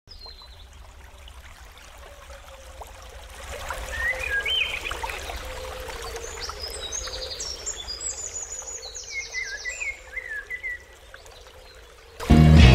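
Forest birds singing over a steady hiss: short chirpy phrases and a quick run of high notes. Loud music cuts in abruptly near the end.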